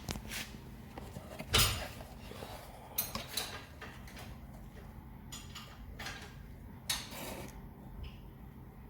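Metal tools and engine parts clinking and knocking against each other in a workshop, a handful of separate sharp clinks with the loudest about a second and a half in, over a steady low hum.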